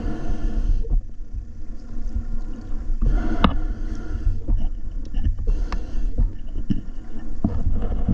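Water sloshing and splashing against a camera held at the river surface, with sharp splashes a few times over a steady low rumble.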